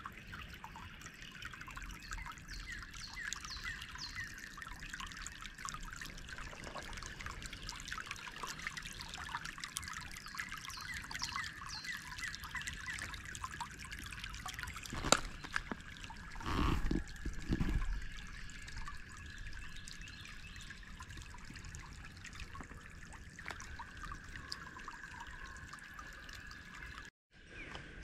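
Creek water trickling and bubbling steadily. A sharp knock comes about halfway through, followed by a couple of low thumps.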